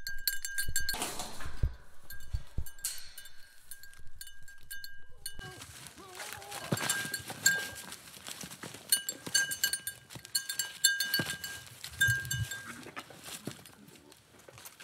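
Goats jostling and butting heads, with a small bell on a goat's collar clinking on and off as it moves. There are dull thumps and scuffles, and a short goat bleat about six seconds in.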